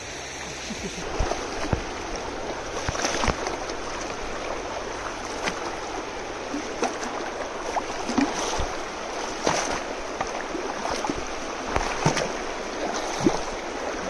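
A river flowing, with irregular splashes of feet wading through the shallow water.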